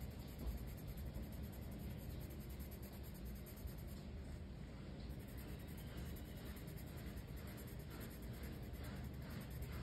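Colored pencil scratching on coloring-book paper in quick back-and-forth shading strokes. Near the end the strokes stand out more distinctly, about three a second.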